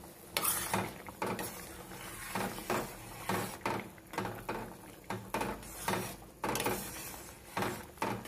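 A metal spoon knocking and scraping against the side and bottom of a metal pot, about once or twice a second, as spaghetti is stirred in boiling water.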